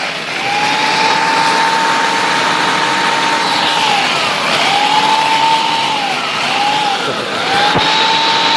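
Electric blender pulsed four times, grinding raisin bran cereal to powder. Its motor whine spins up and drops off between pulses, and there is a sharp click near the end.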